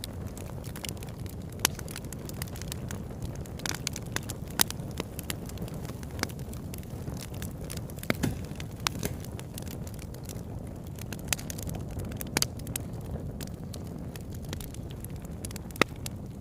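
Campfire burning: wood crackling and popping in irregular sharp snaps over a steady low rumble of the flames, with a handful of louder pops.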